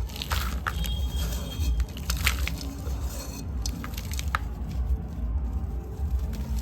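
Dry, dusty sand-cement cylinders being crumbled by hand: a soft, gritty crunching with scattered sharp crackles as pieces break.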